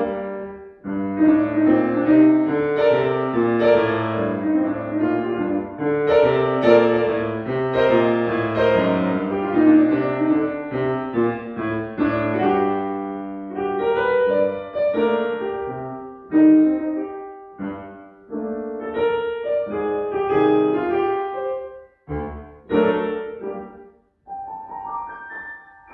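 Steinway grand piano played solo: a classical-style piece of chords under a moving melody. Near the end it breaks off twice briefly, then a quick rising run up the keyboard leaves high notes ringing.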